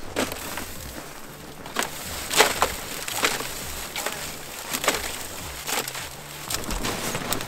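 Fire on a burning ATV crackling: irregular sharp snaps and pops over a steady hiss.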